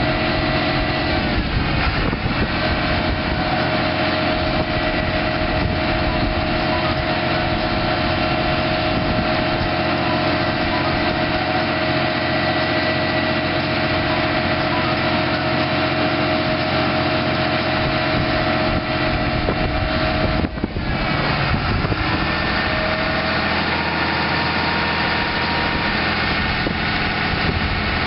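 1990 Ford F800's 6.6-litre inline-six turbo diesel engine running steadily at an even pitch. About twenty seconds in the sound dips briefly, and afterwards the note changes.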